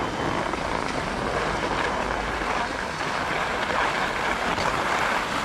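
Skis sliding and scraping over packed, tracked snow in a steady hiss, with wind rumbling on the camera microphone.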